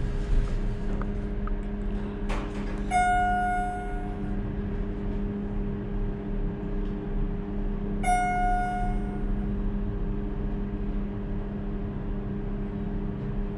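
Schindler MT/300A hydraulic elevator cab travelling down with a steady hum, and two single electronic chimes about five seconds apart, each ringing out over a second.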